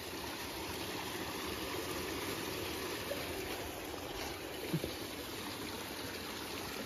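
Small stream running and trickling steadily over its bed.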